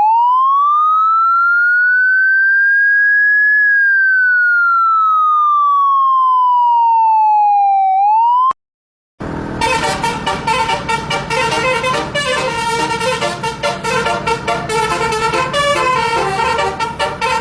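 Siren sound effect: one slow wail, a clean tone rising for about three and a half seconds and falling for about four, cut off just as it starts to climb again. After a short gap, a busy tune with quick notes begins and runs on.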